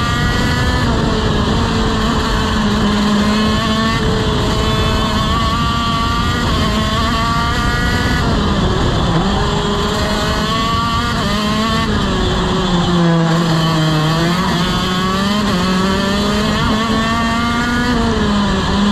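TM KZ-R1 125cc two-stroke shifter kart engine at race speed, heard onboard. Its pitch dips about nine seconds in, falls to its lowest around thirteen to fourteen seconds in, then climbs again.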